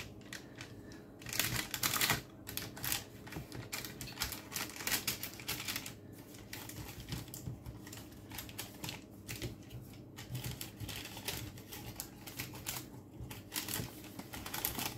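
Raw potato and carrot pieces being turned by hand in oil in a paper-lined glass roasting dish: a run of irregular small clicks and taps, loudest about two seconds in.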